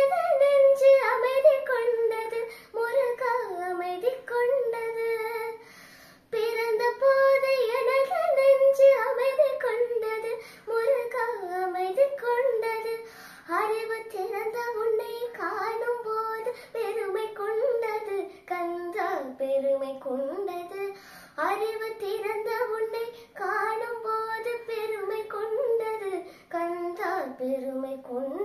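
A girl singing a Tamil devotional song to Murugan, solo, in long melodic phrases with a short break about six seconds in.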